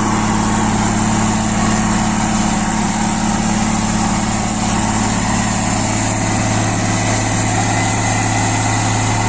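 Road roller's diesel engine running steadily at a constant, even pitch.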